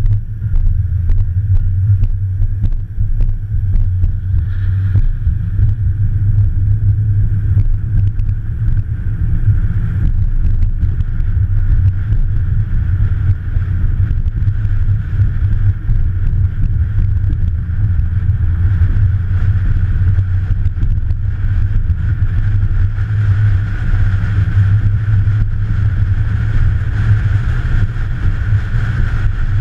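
A car engine running with a loud, steady low rumble.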